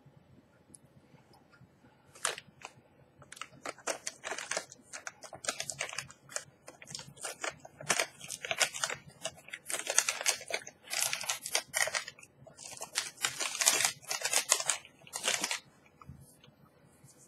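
Plastic protein-bar wrapper crinkling and crackling in quick irregular bursts from about two seconds in until near the end.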